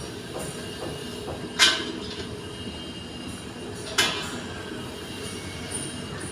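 Steady machinery rumble with two sharp clanks, about two and a half seconds apart.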